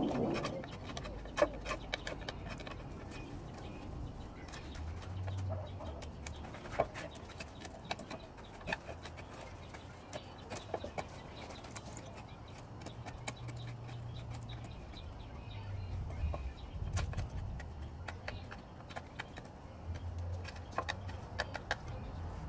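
Mora Companion Heavy Duty knife carving into a thick stick of wood: irregular sharp clicks and scrapes as the blade bites and chips come away.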